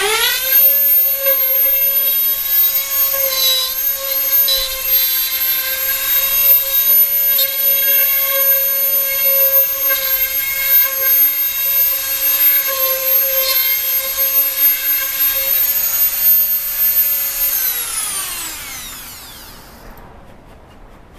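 Dremel rotary tool in a router base spinning up to a loud, steady high whine as its bit routes a rosette channel in a ukulele soundboard. Near the end it is switched off and the whine falls in pitch and fades over about two seconds.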